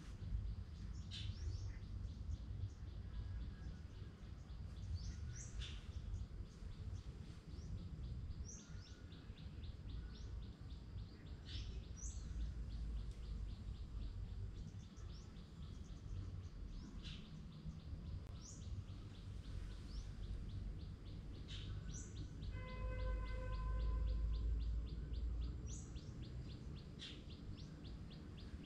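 Birds chirping: short, high, rising chirps every couple of seconds over a fast, steady high ticking, with a low background rumble. About two-thirds of the way through, a steady pitched hum and a stronger low rumble swell for about two seconds.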